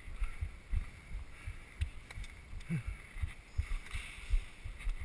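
Irregular low thumps and rumble on the microphone of a camera being carried around, with a faint short voice about halfway through.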